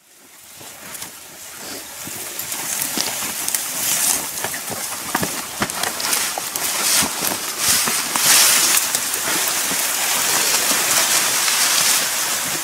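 Scrub and long grass brushing and crackling against a man's body and clothes as he pushes through dense bush, with many small snaps. The sound fades in over the first couple of seconds.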